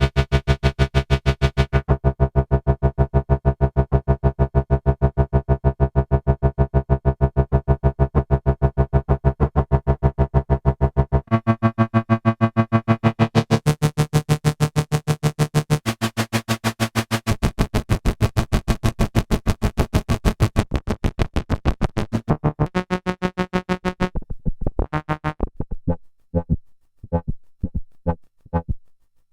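EDP Wasp monophonic analog synthesizer playing a low, buzzy note that pulses rapidly, held for a long stretch. It then steps through a few other notes and turns brighter partway through. Near the end it breaks into short, separate stabs.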